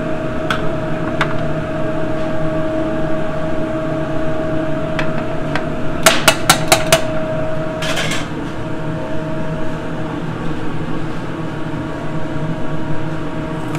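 Metal tongs clacking against an aluminium pot and metal platter: a quick run of about five sharp clicks about six seconds in and another short clatter near eight seconds, over a steady kitchen hum with a constant tone.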